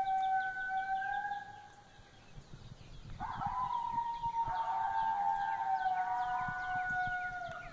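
Recorded coyote howls played from an Icotec GC300 electronic predator call: one long howl fades out about a second and a half in, then after a short pause a new howl rises and holds about three seconds in, joined by a second, lower howl so that two howl together until near the end.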